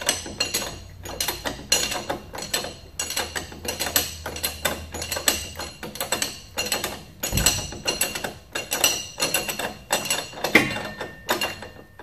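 Ratchet wrench clicking in quick runs of short metallic clicks as a bolt at a motorcycle's rear wheel hub is turned, with a dull thump about halfway through.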